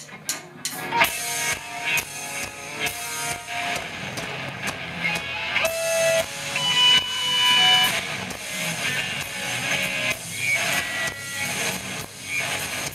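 Live metal band playing: electric guitars, bass and drum kit launching into a song with a loud hit about a second in, then playing on with held guitar notes over the drums.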